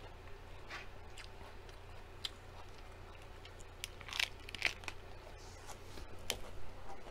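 Close-up crunching and chewing of a fresh lettuce leaf, with scattered crisp clicks and the loudest crunches coming as it is bitten about four seconds in. A steady low hum sits underneath.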